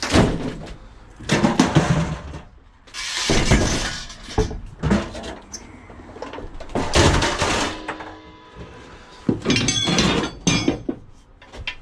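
Scrap metal being handled and dropped: a series of loud clattering crashes and clanks in separate bursts, a few of them ringing briefly near the end.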